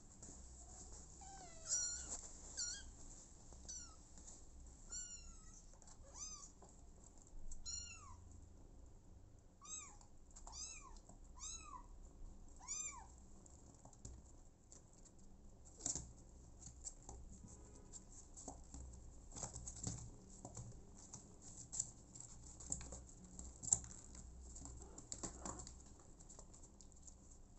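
A young kitten mewing over and over, about a dozen short high calls in the first half, each rising then falling in pitch. After that, only faint scattered clicks and rustles.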